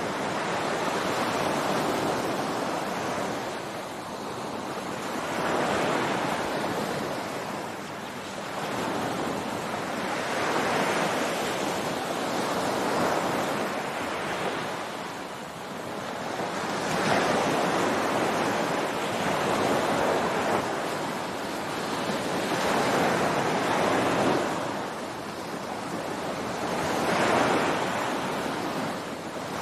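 Ocean surf breaking on a beach: a continuous wash of waves swelling and falling back every two to three seconds.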